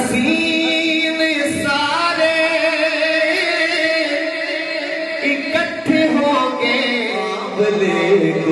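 A man singing a naat, an Urdu devotional poem in praise of the Prophet, unaccompanied into a microphone, with long held notes ornamented by wavering, rising and falling melismas.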